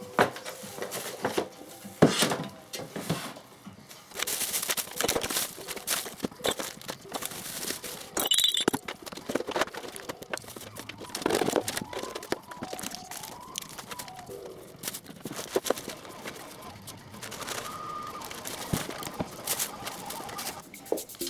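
Handling noises: rustling and crinkling with many scattered knocks and clicks as things are picked up and moved about.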